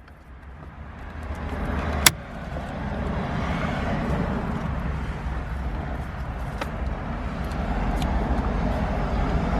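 Steady traffic noise from a motor vehicle, swelling in over the first two seconds and then holding, with one sharp click about two seconds in.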